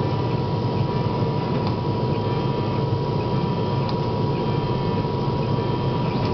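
CO2 laser cutting machine running during a cut: a steady low hum with a thin steady high tone over it and a few faint ticks, the unusual noise its owner finds strange when cutting.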